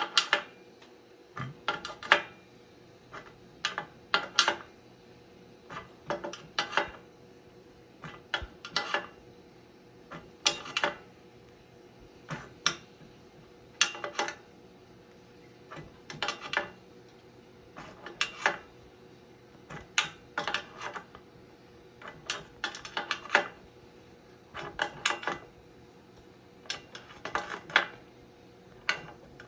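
Metal clicking in short clusters about every two seconds as a large wrench tightens the nuts of a homemade threaded-rod headset press. The press is drawing 1 1/8 in headset cups into a bicycle head tube.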